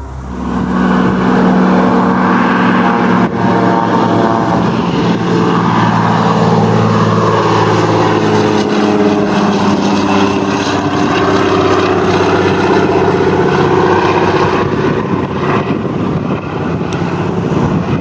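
Float-equipped de Havilland DHC-2 Beaver taking off, its radial engine and propeller running loud and steady at takeoff power. Its pitch slides as it passes close by, and it fades a little as it climbs away near the end.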